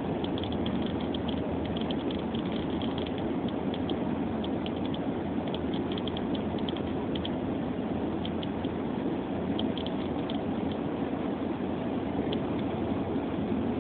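Steady rumble of a car driving, heard inside the cabin, with scattered faint ticks of snow striking the windshield.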